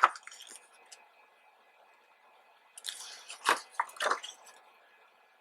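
Glossy photobook pages being handled and turned: a brief rustle at the start, then a few quick paper crinkles and flaps about three to four seconds in.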